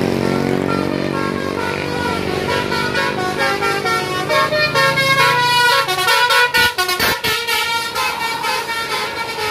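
A tour bus's basuri multi-tone musical air horn playing a tune, its notes stepping from one pitch to the next. A low drone sits under it for the first half, and a few sharp knocks come about six to seven seconds in.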